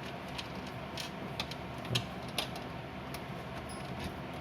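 Light clicks and taps of computer hardware being handled and fitted, coming irregularly, the sharpest a little under two seconds in, over a steady background hum.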